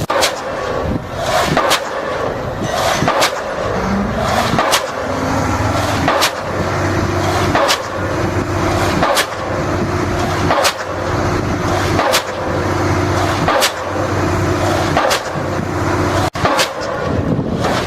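STARKE HD100 diesel pile hammer running, striking with sharp blows at an even pace of about one every second and a half as it drives a pile. A steady engine hum runs underneath from about five seconds in.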